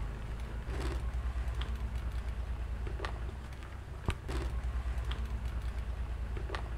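Whole mojarra fish being dropped one by one into a pot of broth: about half a dozen short knocks and splashes over a steady low rumble.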